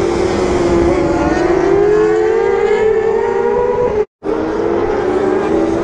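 Supersport race motorcycles at high revs on the track, a sustained engine whine that sags slightly and then climbs in pitch. It cuts out for a split second about four seconds in.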